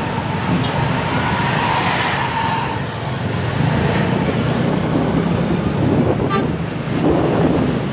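Road traffic with engines running and a bus 'telolet' horn sounding: a held horn tone over the first few seconds and a short tone about six seconds in.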